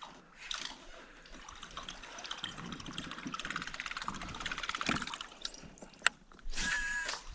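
River water splashing and trickling, with a few sharp clicks near the end.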